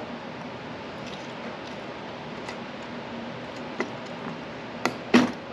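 Light clicks and taps of a roof rack load bar being slid through its load bar clamps, with a sharper knock near the end, over a steady hiss.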